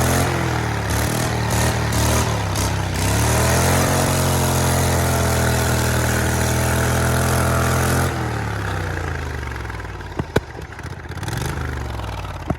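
Turbocharged V-twin lawnmower engine revving in a few short blips, then held at high revs for about four seconds before winding down. A couple of sharp clicks come near the end.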